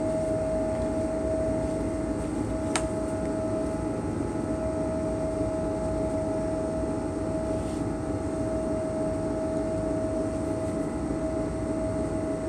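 Steady machinery hum with a constant whine, and a single click about three seconds in.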